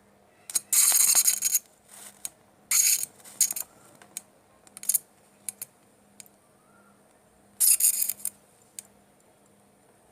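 Electric arc from a homemade 12 V battery welder sparking and crackling as wire ends are welded: several short bursts of harsh sizzle, the longest about a second long near the start and another near the end, with sharp clicks between them.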